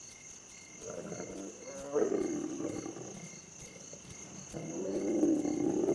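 Lions growling low in three stretches of a second or more each, with the middle one starting sharply. Crickets chirp steadily underneath, about twice a second.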